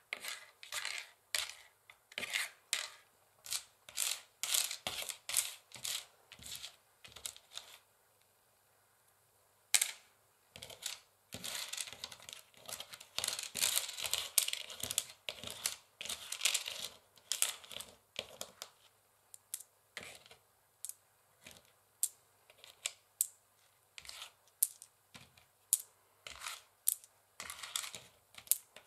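Long fingernails tapping and scratching on a wooden chessboard, making quick, irregular clicks. The sound stops for about two seconds about a third of the way in, then comes back as denser runs of scratching and tapping.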